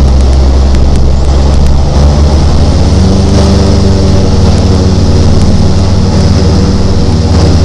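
DHC-6 Twin Otter's PT6A turboprop engines and propellers running loud, heard from inside the cabin as the aircraft rolls along the runway after landing. The drone's pitch changes about three seconds in.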